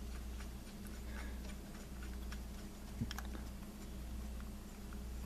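Faint, scattered light metallic clicks and taps from a Honda D16 SOHC timing belt tensioner pulley, its spring and bolt being fitted by hand, over a steady low hum.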